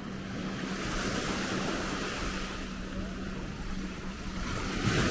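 Sea waves breaking and washing onto the beach, swelling about a second in and again near the end, with a steady low hum underneath.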